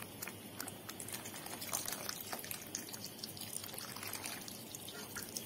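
Thick tomato-paste sauce simmering in a frying pan, its bubbles popping and plopping in small irregular clicks.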